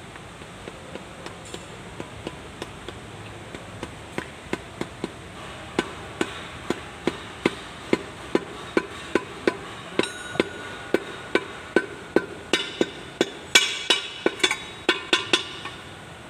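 Small hammer tapping an oil seal into the rear axle housing of a Kubota L1-185 tractor: a steady run of sharp metal-on-metal taps, about three a second. The taps grow harder from about four seconds in, ring briefly near the middle, and are loudest near the end.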